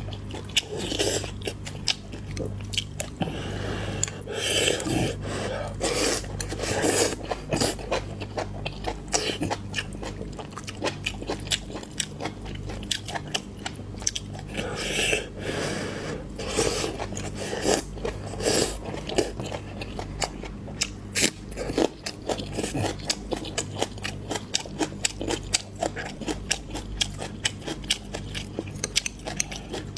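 A person chewing and biting food close to the microphone, with many short, sharp crunches and clicks throughout.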